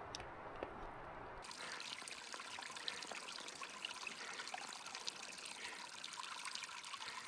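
Water trickling and splashing over stones, a small mountain runnel, coming in abruptly about a second and a half in after a low, even hiss.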